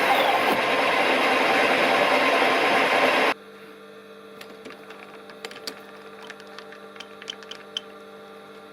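Smart & Brown model A lathe running with a loud, even mechanical noise that stops abruptly a few seconds in, leaving a steady electrical hum with a few light clicks.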